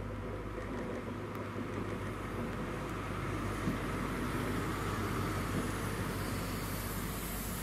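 HST diesel train running past: the Class 43 power car's engine drone grows as it draws level about four seconds in. It gives way to the rumble and high hiss of the Mark 3 coaches' wheels on the rails near the end.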